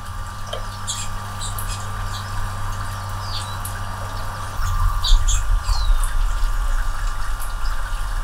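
Anna's hummingbirds at a feeder, close to the microphone, giving many short, sharp high chip notes, some dropping in pitch, in an irregular scatter. A steady low hum runs underneath, and a low rumble grows louder a little past halfway.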